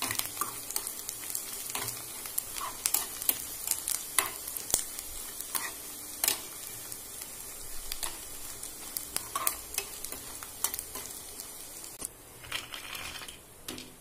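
Food pieces sizzling in hot oil in a steel kadai, stirred with a metal spoon that clicks and scrapes against the pan. Near the end the sizzling drops away and a short scraping rustle follows.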